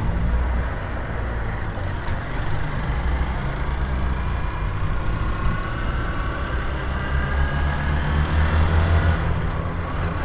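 Honda CG 150 Titan's single-cylinder four-stroke engine running while the motorcycle is ridden, under a heavy low rumble, with a whine that rises in pitch through the second half.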